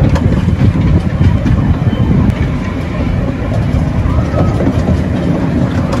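Currumbin Express tourist train running: a loud, steady low rumble of its engine and wheels.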